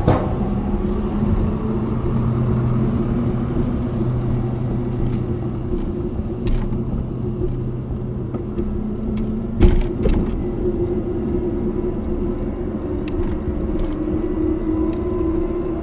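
Cargo bike rolling along pavement, heard from inside its front box: a steady rumble of tyres and frame with a constant hum, light rattles, and one sharp knock about ten seconds in.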